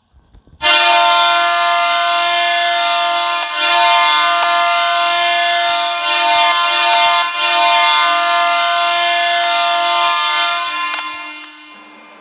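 Belleville Senators' hockey goal horn: one long, steady horn blast that starts sharply under a second in, sounds for about ten seconds, then fades out near the end.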